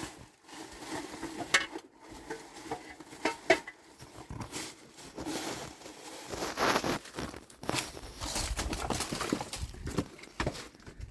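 Scattered light clicks and knocks with rustling, as of things being handled and moved about. There is a longer stretch of rustling a little past the middle and a low rumble near the end.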